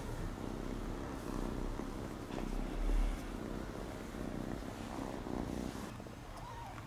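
Ginger kitten purring steadily while its head is scratched, with a low bump about three seconds in.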